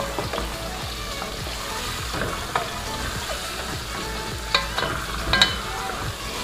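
Chicken pieces sizzling in oil with sautéed onions and spices in an aluminium pot while a wooden spatula stirs and turns them, browning the chicken. A few sharp knocks of the spatula against the pot, the loudest about five seconds in.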